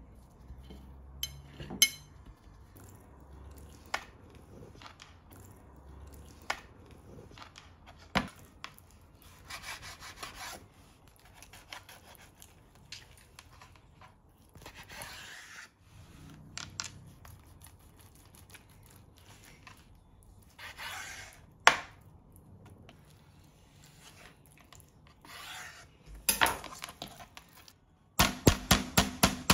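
Kitchen prep on a wooden cutting board: rubbing and knife strokes slicing through raw chicken breast, with scattered knocks and taps. Near the end a meat mallet starts pounding the chicken on the board, about four quick strikes a second.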